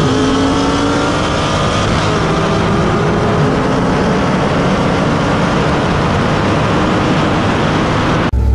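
Cars running flat out on a highway at well over 100 mph: a steady engine drone under heavy wind and road rush. It cuts off abruptly near the end.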